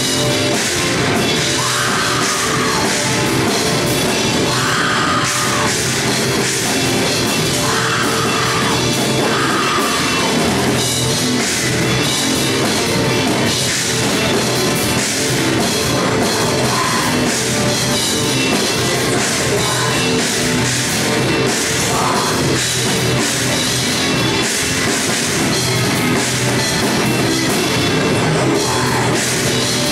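Live rock band playing loud and without a break: electric guitars over a full drum kit.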